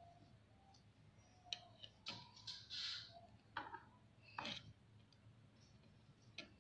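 Faint clicks and light rustles from handling a plastic canvas sheet, a crocheted panel and a pair of scissors, a few scattered taps spread through otherwise near silence.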